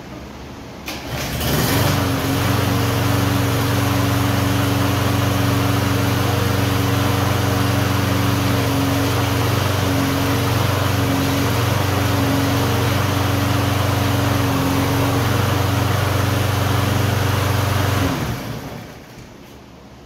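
Toro Personal Pace push mower's Briggs & Stratton engine pull-started, catching right away about a second in and then running steady and smooth without surging, the sign that the carburetor's clogged jet has been cured. It is shut off near the end and winds down to a stop.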